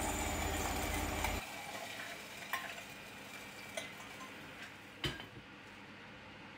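Hot oil with browned garlic and chili flakes poured over a pan of gravy as a tempering, sizzling steadily, then dropping away about a second and a half in. A few light clinks of cookware follow, the last one the sharpest.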